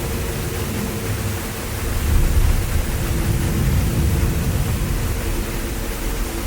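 Waterfall rushing steadily: an even roar of falling water with low rumble, and a faint steady hum underneath.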